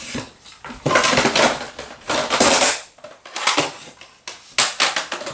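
Picture frames clattering and knocking together as they are handled and stacked, in about four short bursts of hard clicks and knocks.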